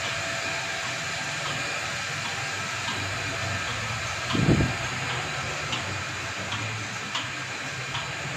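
Milking machine running: the vacuum pump's steady drone, with light regular clicks from the pulsator about every three-quarters of a second. A single louder low thump comes about halfway through.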